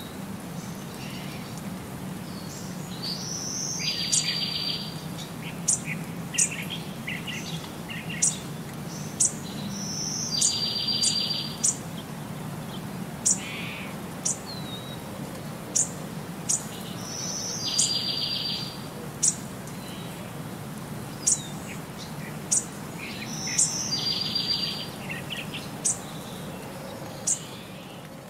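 Bird chirps and short buzzy trills over a steady low hum, the same pattern coming round about every six to seven seconds: a looped birdsong track laid over the pictures.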